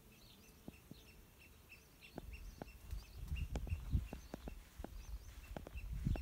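A small bird chirping repeatedly, a short high note several times a second. From about two seconds in, footsteps of someone walking with the camera come in over it as clicks and low thuds, growing louder.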